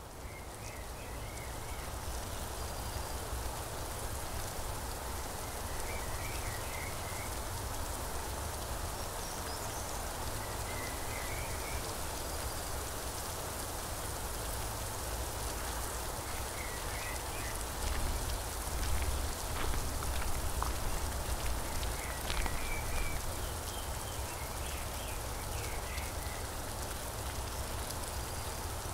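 Steady rain falling as an even hiss. A bird gives short calls every few seconds, and a low rumble grows louder a little past the middle.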